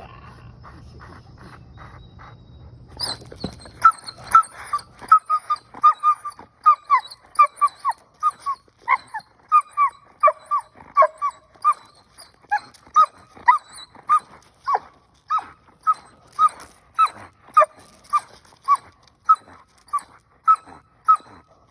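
Dog barking repeatedly in short, high barks, about two a second, starting about three seconds in and keeping on without a break.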